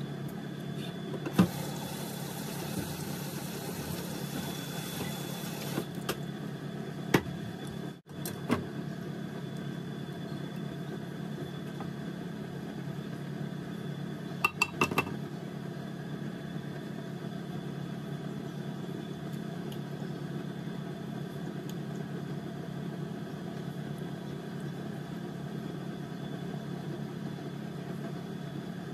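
A steady low hum of a kitchen appliance, with a few sharp clicks and knocks and, about halfway through, a quick cluster of ringing clinks as kitchen utensils and a metal fruit can are handled.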